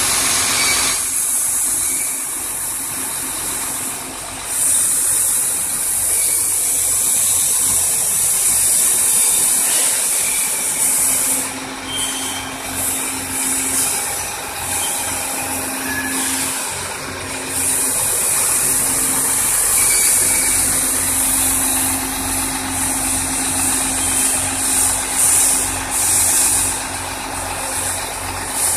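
Sinotruk HOWO heavy truck's diesel engine idling, with a strong steady hiss over it.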